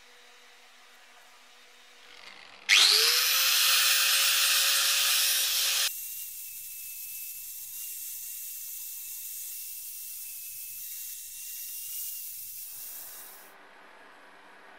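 Angle grinder starting up with a quickly rising whine and grinding the lip of a sheet-steel repair patch held in a vise. About six seconds in, the sound drops abruptly to a quieter steady high whine with grinding hiss, which fades out near the end.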